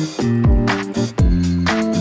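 Background music with a steady beat of low drum hits and cymbal strikes over held chords.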